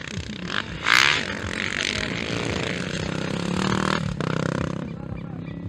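Dirt bike engine revving hard as it passes close. There is a loud burst of noise about a second in, then a rev that climbs in pitch, briefly dropping out just after four seconds.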